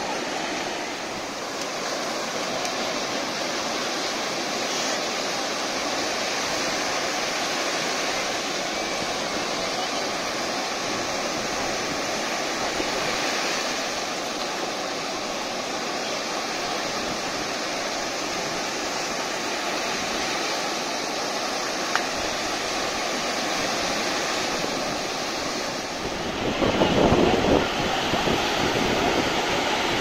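Rough, stormy surf breaking and washing up a sandy beach, a steady rushing hiss. About four seconds before the end, wind buffets the microphone with a louder rumble.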